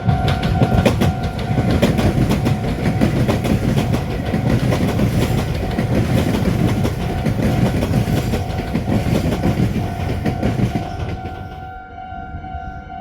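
A train passes through a railway level crossing, its wheels rumbling and clacking over the rail joints, then fading out about 11 seconds in. The crossing's warning bell keeps ringing throughout as a steady, pulsing tone.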